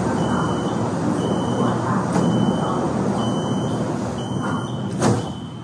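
Metro door warning beeper sounding a single high tone about once a second, each beep about half a second long, over the rumble of a metro train and station. The beeping is the warning that the doors are about to close.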